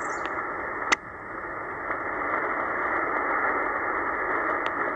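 Shortwave hiss and static from a Tecsun PL-990x's speaker in upper sideband mode as it is tuned through about 13.5 MHz, where a CODAR coastal ocean radar signal sits under the noise. There is a sharp click about a second in, and short regular ticks start near the end.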